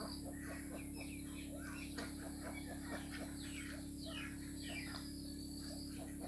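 Flock of domestic ducks calling with many short, quick quacks and chattering notes, several a second, over a steady background hum.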